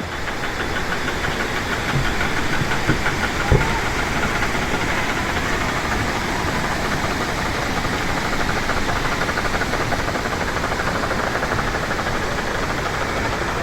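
Steady rush of flowing water from a stream and waterfall, with a fast, fine rhythmic patter running through it. A couple of short knocks sound about two to three and a half seconds in.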